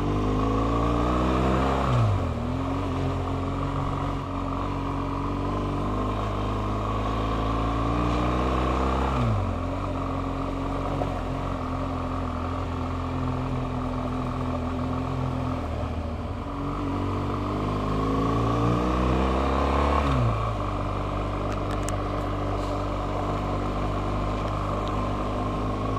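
BMW R1200GS motorcycle's flat-twin boxer engine running under way. Its pitch climbs slowly and drops sharply three times, about two, nine and twenty seconds in.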